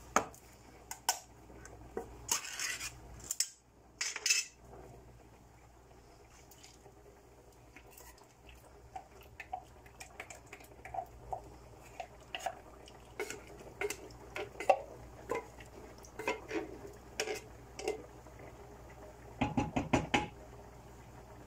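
Beans being scraped out of a tin can into a metal cooking pot with a wooden spoon: scattered knocks and clinks of the spoon against the tin and the pot, with a quick run of taps near the end as the can is knocked empty.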